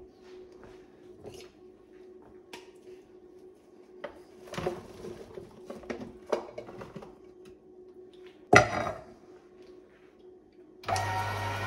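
Metal parts of an electric meat grinder clicking and knocking as it is fitted and set up, with a steel bowl set down with a sharp clatter about 8.5 seconds in, the loudest sound. Near the end the grinder's motor is switched on and runs with a steady hum, ready to grind onions.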